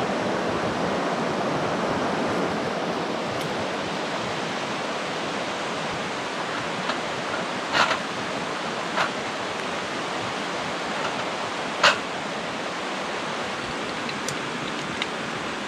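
Steady rushing of a river, with a few short sharp knocks, the loudest about twelve seconds in.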